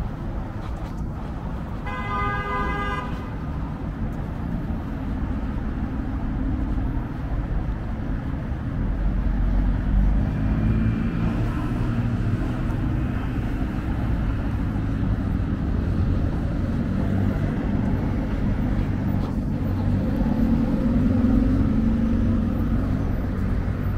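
City street traffic: a steady low rumble of passing cars that swells twice as vehicles go by, and a vehicle horn honking once for about a second, two seconds in.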